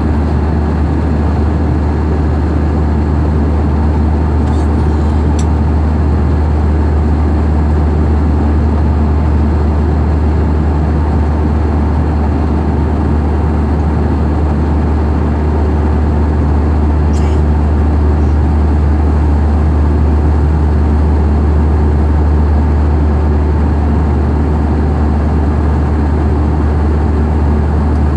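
A loud, steady low mechanical drone that does not change, with a faint high tick about five seconds in and again near seventeen seconds.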